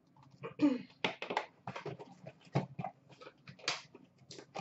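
Handling noise as a plastic puck display case is set down on a glass counter and the lid of a black cardboard box is lifted open: a run of knocks, clicks and scrapes, with a short falling squeak about half a second in.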